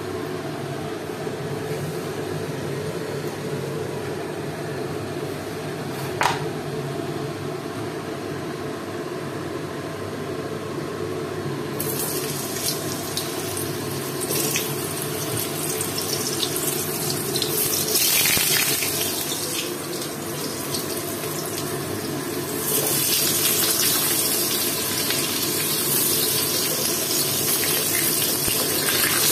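Whole peeled potatoes frying in hot oil in a steel kadai. A steady low rush fills the first twelve seconds, broken by a single sharp click about six seconds in; then a loud sizzle starts suddenly as the potatoes go into the oil, and grows louder again a little past twenty seconds as more are added.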